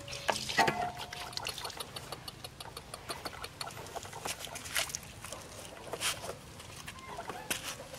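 Water trickling and splashing from a hose across wet concrete, with many small drips and splashes. A puppy gives a brief whine about half a second in.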